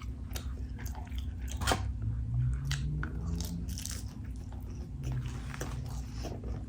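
Close-miked chewing and biting of a McDonald's Big Mac, with many short, wet mouth clicks.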